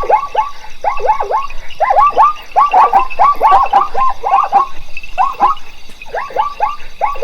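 A chorus of many animals calling at once: short calls that each drop quickly in pitch, overlapping several times a second.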